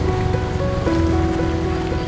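Background music with held notes and a light, regular plucked beat, over a steady rushing noise like falling water.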